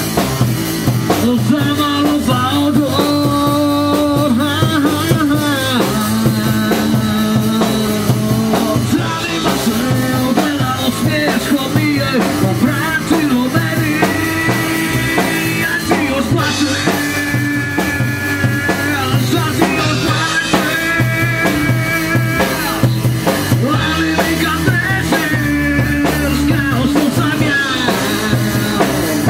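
Live rock band playing loud and without a break: electric guitars over a drum kit with cymbals.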